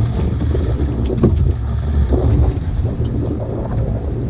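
Low, steady rumble of wind on the microphone aboard a small open boat at sea, with the boat's drone and water noise under it.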